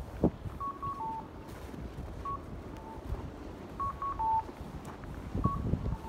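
Electronic chime of a Japanese audible pedestrian-crossing signal, repeating short beeps at a higher note followed by a lower one, cuckoo-style. A few dull thumps of footsteps in snow come near the start and again near the end.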